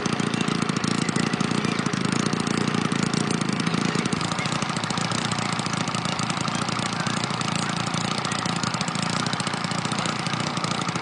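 A motor running steadily with a fast, even pulse.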